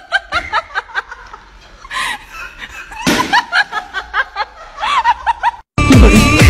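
People laughing and giggling in quick, high-pitched little bursts. Near the end it cuts off abruptly and loud electronic music starts.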